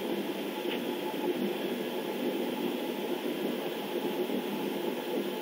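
Steady, even hiss of background noise with no change in level.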